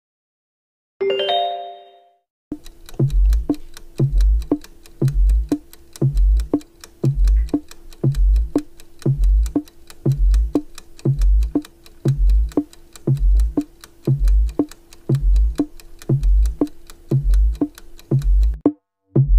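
Quiz countdown-timer sound effect: a ticking beat with a low thump about once a second and lighter ticks in between, over one held note, stopping shortly before the end. A short chime sounds about a second in.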